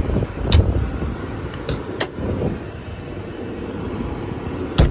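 The truck body's Cummins Onan generator runs with a steady low rumble. Several sharp clicks and knocks come about half a second in, twice around two seconds, and again near the end.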